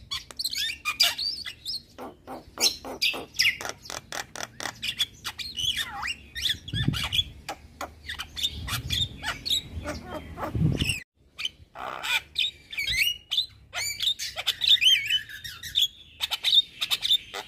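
Javan myna singing in full song: a fast, continuous run of sharp clicks, chatter and curving whistles. The song breaks off abruptly about eleven seconds in and then starts again.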